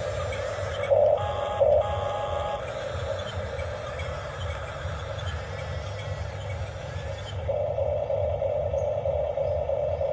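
Small electric motors and gears of a radio-controlled toy excavator running steadily, with two short knocks about a second in.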